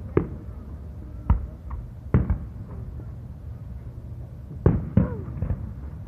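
Aerial fireworks shells bursting: a series of sharp bangs, about five, with two close together near the end, over a steady low background rumble.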